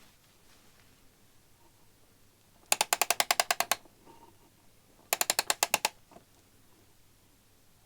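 Clockwork automaton being wound with its key: two runs of quick ratchet clicks, about ten a second, each lasting around a second, with a short pause between them.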